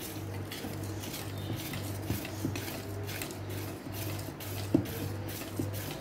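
Wire whisk stirring thick cake batter in a stainless steel bowl: a scraping swish with each stroke, about two to three strokes a second, and the wires clinking against the bowl now and then, one clink louder near the end.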